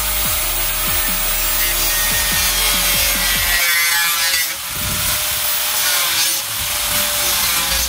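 Handheld angle grinder running with its cutting disc grinding through an acrylic sheet: a steady high motor whine over harsh rasping noise, dipping briefly twice, about four and a half and six and a half seconds in.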